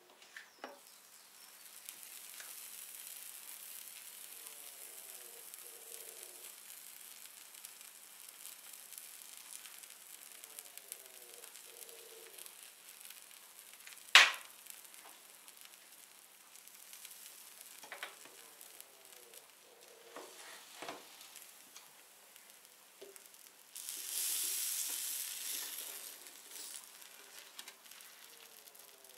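A sandwich sizzling faintly and steadily on the hot plates of an electric contact grill, with one sharp knock about halfway through and a louder spell of sizzling for a couple of seconds near the end.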